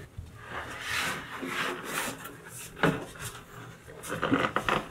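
A large plywood tabletop being handled into place, scraping and rubbing against wood, with a sharp knock about three seconds in and several quick knocks near the end.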